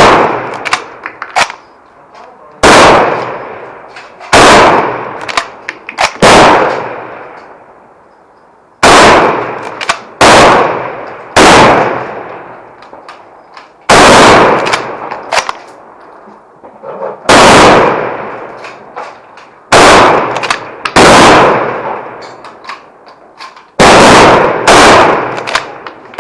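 Rifle fire on a firing line: about fifteen shots, irregularly spaced a second to a few seconds apart, each with an echoing tail. Light metallic clinks come between the shots.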